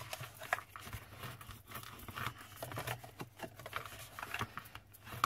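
Bone folder rubbing along the score lines of cardstock, creasing the folded flaps, with the card rustling and tapping on the mat as it is handled. Irregular short scrapes and taps.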